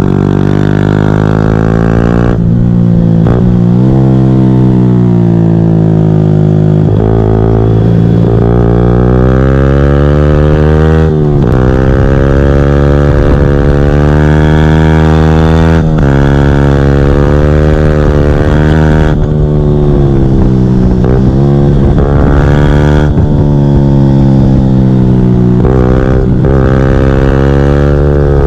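Yamaha YZF-R125 single-cylinder 125 cc engine through a full GPR Furore exhaust with no catalyst or baffle, revving hard as the bike accelerates and shifts gears. The pitch climbs and drops sharply at each change, about eight times, with some falling stretches under engine braking.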